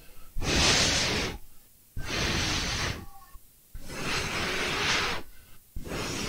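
A person blowing in long, hard puffs, four blows of about a second each, to cool a part that is still hot.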